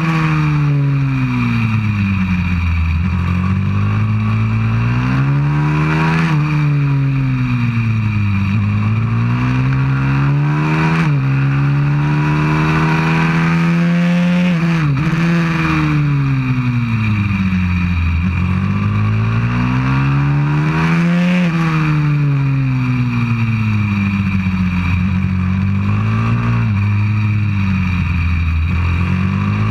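A 190cc pit bike's single-cylinder four-stroke engine, heard from a camera mounted on the bike, revs repeatedly climbing hard and falling back as it accelerates out of corners and slows for the next, with quick breaks in pitch at the gear changes. Wind noise rushes over the microphone throughout.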